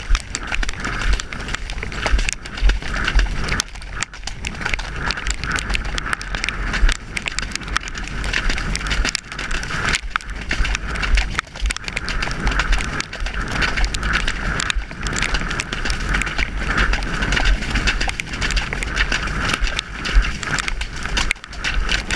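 A horse cantering on a wet, muddy track: loud wind rumble on the helmet camera's microphone over a run of hoofbeats and splashes through mud and puddles.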